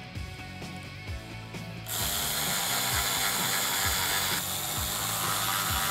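Cordless ratchet with a socket driving a bumper screw home. It starts about two seconds in and runs steadily to the end. Faint background music with a steady beat plays underneath.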